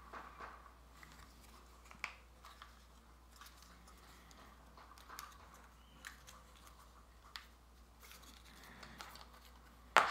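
Light handling noises of small wooden craft-kit pieces: scattered soft clicks and rustles of fingers working the parts, with one sharp click near the end.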